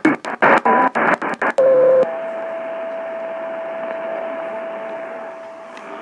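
Radio receiver static cutting in and out in short bursts for about two seconds, then settling into a steady hiss with a faint steady whistle tone running through it.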